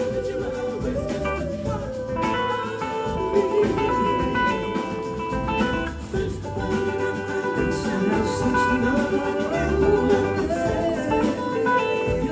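Live blues-rock band playing: two electric guitars over bass and drums.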